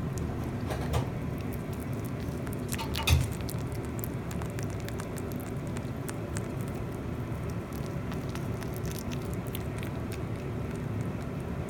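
Mini Rex rabbit biting and chewing a whole banana: soft nibbling with scattered small clicks, and one louder knock about three seconds in, over a steady low hum.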